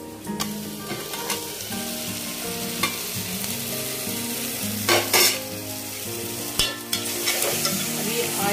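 Tomato and fenugreek-leaf masala sizzling in hot oil in an aluminium pot while it is stirred with a spatula, with a few sharp scrapes of the spatula against the pot about five seconds in and again near the end. The masala is being fried until the oil separates.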